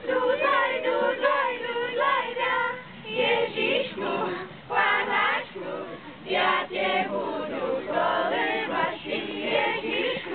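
A group of teenagers singing together unaccompanied, a mix of girls' and boys' voices, in short phrases with brief pauses between them.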